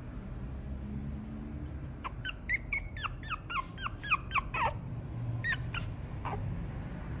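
White Maltese-mix puppy giving a quick run of short, high-pitched squeaky whines, each falling in pitch. About a dozen come from about two seconds in, then a few more further on.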